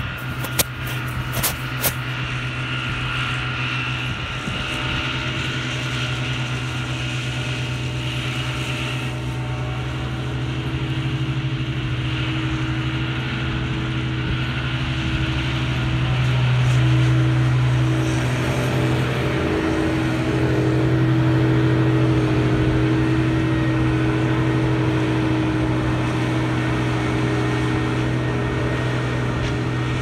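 Challenger self-propelled windrower's diesel engine running steadily under load as it mows hay, a constant low hum. It grows louder around the middle as the machine comes closest, then eases slightly.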